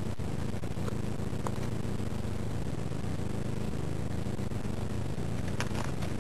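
Steady low rumble and hiss of a trail camera's microphone, with a few faint clicks about a second in and again near the end.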